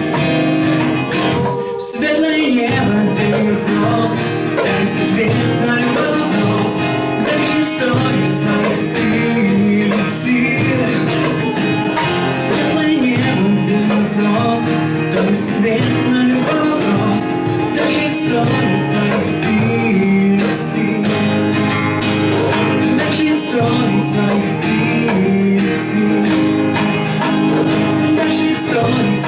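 Music: an instrumental passage of a song with a strummed acoustic guitar, continuing without words.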